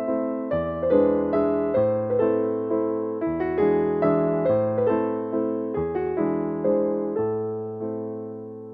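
Background piano music: a gentle tune of struck notes that ring and fade, with the bass note changing every few seconds.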